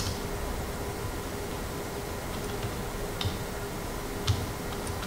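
A few scattered computer keyboard keystrokes, the sharpest about three and four seconds in, over a steady hum and hiss.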